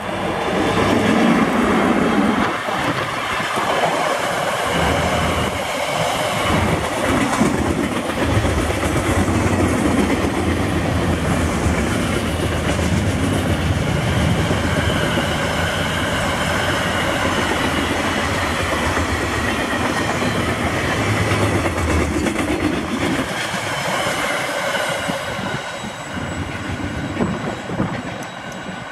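Electric freight train passing close by: the locomotive goes past first, then a long string of freight wagons rumbles by with wheels clicking over the rail joints. The sound eases off near the end as the train moves away.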